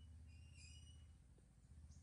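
Near silence: a low steady background hum, with a brief faint high-pitched chirp about half a second in.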